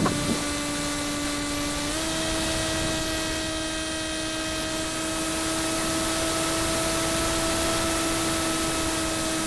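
Radio-controlled model aircraft's motor whining steadily, its pitch stepping up slightly about two seconds in, over a hiss of wind on the microphone.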